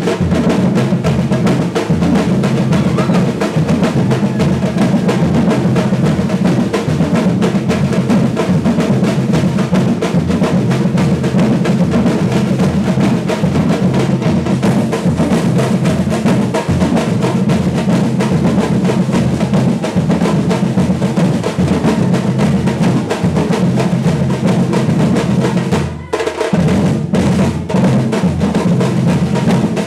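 Brazilian batucada percussion ensemble playing a driving groove together: deep bass drums under dense snare rolls and hand percussion. The whole group cuts out briefly near the end, then comes straight back in.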